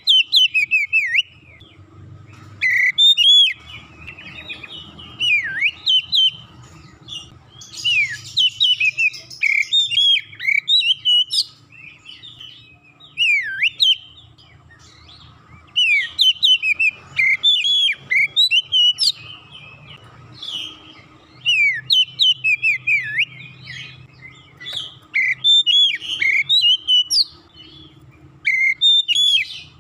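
Oriental magpie-robin singing: loud, varied whistled phrases of quick rising and falling notes, delivered in bursts with short pauses between them.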